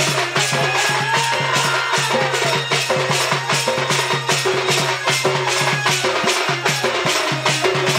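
Instrumental music accompanying a Sambalpuri dand folk dance: fast, even percussion strokes, about five a second, under a sustained melody line.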